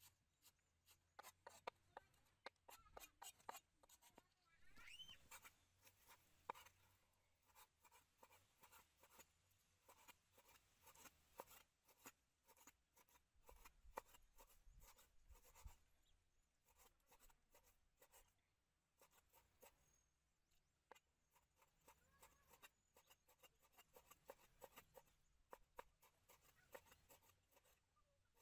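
Cleaver chopping on a wooden chopping board, first through rice noodles and then through raw meat: faint, quick knife taps in uneven runs.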